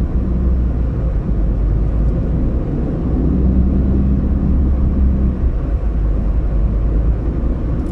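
Car driving on a road: a steady low rumble of engine and tyres, with a steady hum that comes in for a couple of seconds around the middle.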